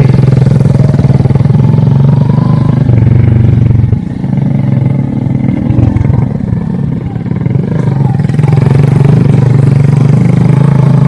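Motorcycle engine running close by with a steady low hum. It drops back about four seconds in and picks up again a few seconds later.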